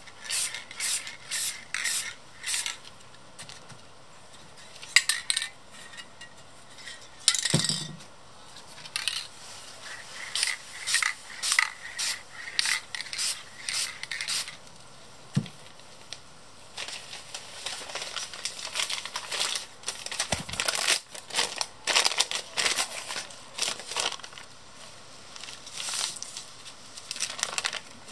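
Aerosol spray paint can spraying in short hissing spurts, about two a second, as turquoise paint is laid over a card. In the later part this gives way to the crinkling of a crumpled sheet of newspaper dabbed onto the wet paint.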